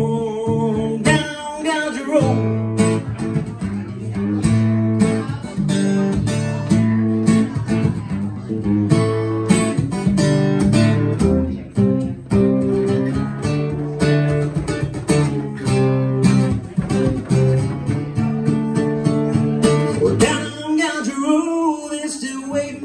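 Acoustic guitar strummed and picked in a steady rhythm through an instrumental break of a country song, chords changing every second or so.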